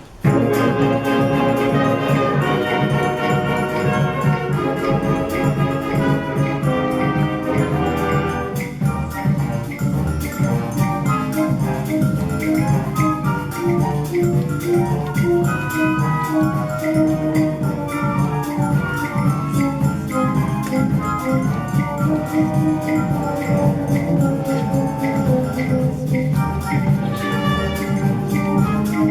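Middle school concert band playing, with wind melody lines over steady percussion; the music starts suddenly at the very beginning.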